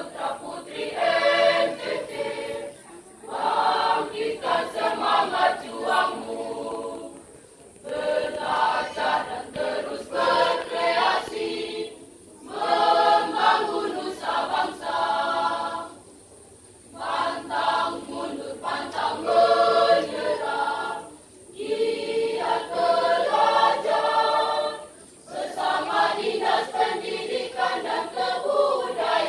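A school choir of boys and girls singing together, with a conductor leading. The song comes in phrases of about four seconds, each followed by a short pause.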